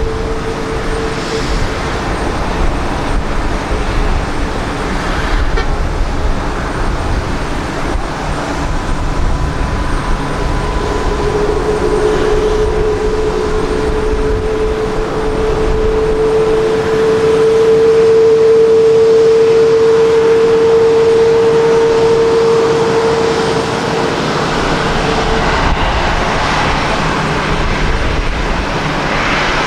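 Jet airliner engines running at low power: a steady whine over a loud rumble. The whine swells in the middle and then fades.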